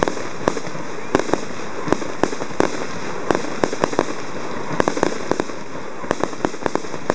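Fireworks going off: sharp, irregular pops, about two or three a second, over a steady hiss.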